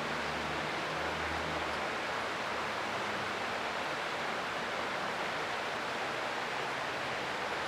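Creek water flowing in a steady rushing hiss. A faint low drone underneath fades out about two seconds in.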